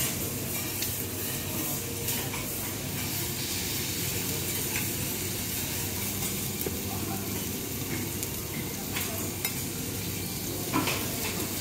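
Wagyu beef pieces and fat sizzling on a teppanyaki steel griddle, with scattered clicks and scrapes of a metal spatula and fork against the griddle; a sharper clack near the end.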